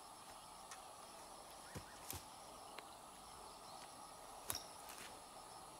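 Faint, steady insect chorus in waterside vegetation, with a few soft knocks and one sharper click about three-quarters of the way through.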